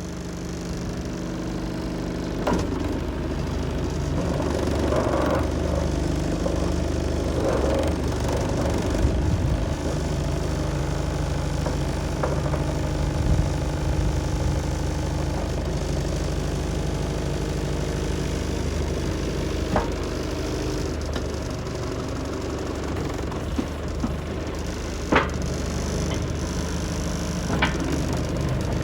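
Diesel engine of a Mitsubishi BD2J bulldozer running steadily, getting louder over the first few seconds and then holding level. A few sharp clanks stand out above it.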